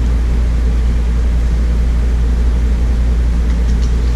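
Steady low mechanical hum running without change, with a few faint rustles of book pages near the end.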